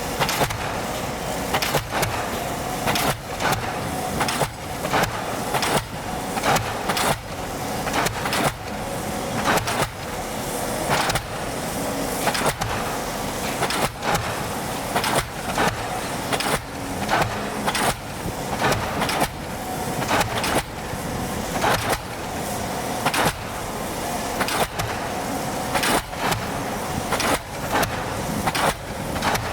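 Pile hammer on the pile-driving rig of an EO-5111B excavator, striking a pile at about one blow a second over the steady running of the machinery.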